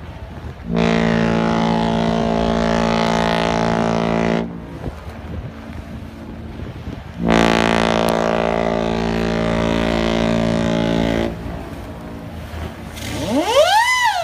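Ships' horns exchanging signals: two long steady blasts of about four seconds each, a few seconds apart. Near the end a whistle starts that slides up in pitch and then wavers.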